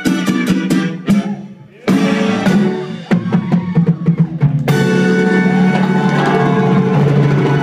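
Live salsa band playing: a run of sharp, punchy ensemble hits with percussion and a brief drop-out, then the full band settles into a steady groove about halfway through.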